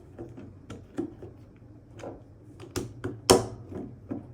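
A plastic mounting frame being pressed and snapped onto a handheld computer: a string of small irregular clicks and taps, with one louder click about three seconds in.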